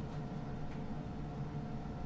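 Steady low hum and hiss of room noise, with a couple of faint soft ticks in the first second.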